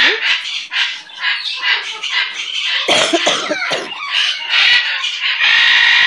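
Macaw squawking loudly: harsh screeches repeated several times, with a cluster of lower, gliding calls about three seconds in.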